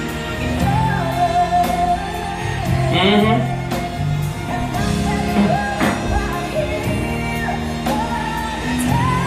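A woman singing a soulful ballad live with band accompaniment, with melismatic runs that sweep up in pitch about three and six seconds in.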